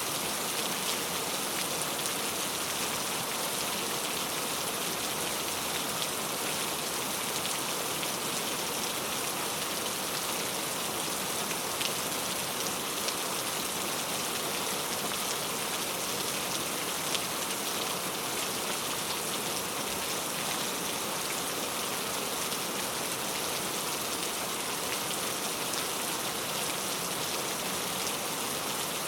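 Steady rain falling: an even hiss with faint ticks of single drops scattered through it.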